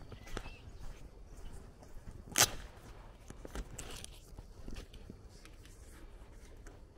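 Footsteps of a person walking on a dirt road, with one sharp click about two and a half seconds in, the loudest sound.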